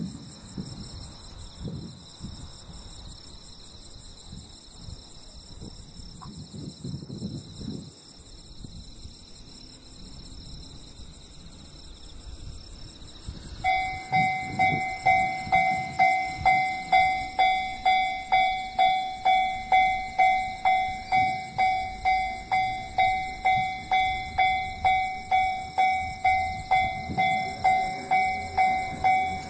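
Electronic warning bell of a Japanese railway level crossing starting up about halfway through and ringing steadily at about two strikes a second: the crossing is closing for an approaching train. Before it starts there is only faint, quiet background.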